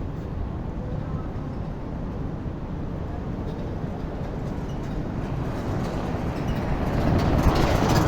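Wind buffeting the microphone: a steady low rumble that grows louder over the last three seconds.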